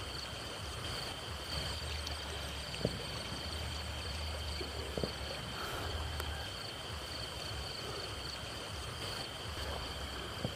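Night insects chirring steadily on two high pitches, over a low rumble, with a few faint taps.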